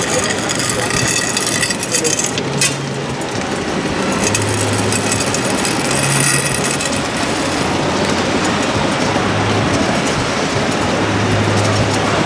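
Radio-controlled scale model vehicles running, a forklift among them, over a steady din. A low hum switches on and off in stretches of one to two seconds.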